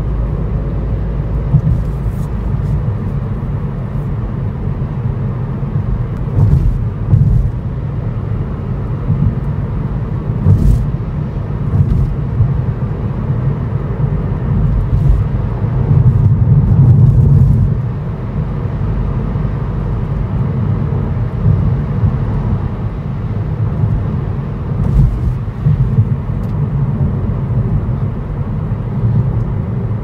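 Steady low rumble of a car's engine and tyres heard from inside the cabin while driving, with a few faint clicks and knocks.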